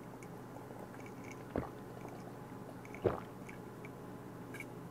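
A person gulping down a drink from a glass mug: two loud swallows about a second and a half apart.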